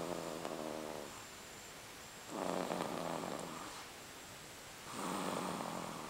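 Steady, regular snoring: three long snores about two and a half seconds apart, one at the start, one about two seconds in and one about five seconds in.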